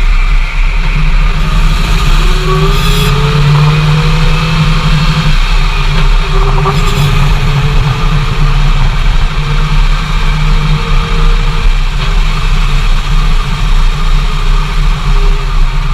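2008 Dodge Ram 2500HD's Hemi V8 and drivetrain heard from inside the cab while driving: a steady low drone with a whine that rises in pitch a few seconds in and then holds. Two brief clicks sound about three and seven seconds in.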